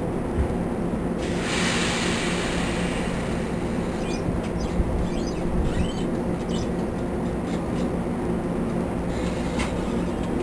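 NJ Transit Comet passenger coaches rolling slowly past along a curved track, a steady low hum of the train running under everything. A burst of hiss comes about a second in, and short high squeals from the wheels sound several times around the middle and once more near the end.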